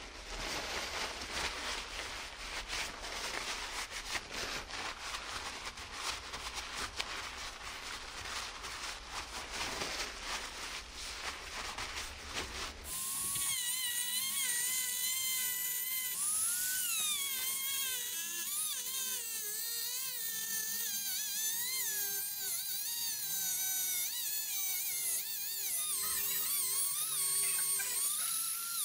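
Dremel rotary tool with a cut-off disc cutting into the steel lower steering-head bearing race, to open the race so it loses its grip on the stem. It starts abruptly about a third of the way in, as a high whine whose pitch wavers as the disc takes load. Before it comes a crackling, scratchy noise with no steady pitch, which fits duct tape being pulled off the roll and pressed on.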